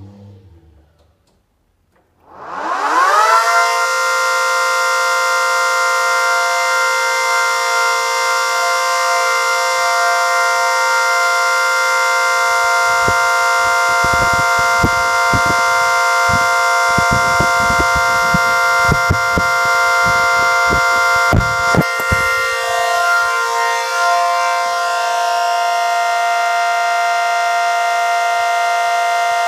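Tri-tone siren with projector horns spinning up about two seconds in. Its pitch rises fast and settles into a loud, steady three-note chord that holds to the end. Low rumbling knocks come and go in the middle.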